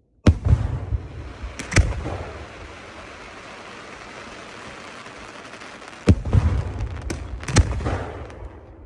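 Fireworks going off: four sharp bangs, two close together near the start and two more about six and seven and a half seconds in, each followed by a long hissing crackle that fades away.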